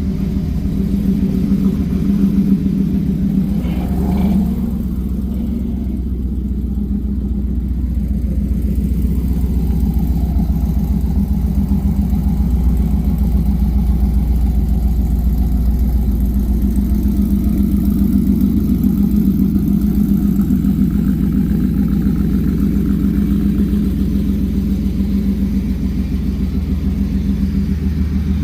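V8 pickup truck engine running steadily with a deep, loud rumble, swelling briefly about four seconds in.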